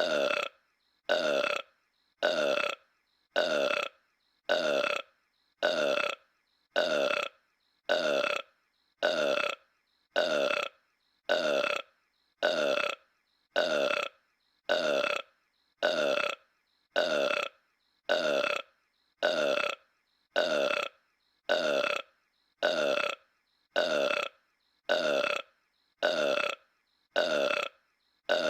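A man's cartoon burp, the same short clip looped back to back, about one burp a second with a brief silence between each.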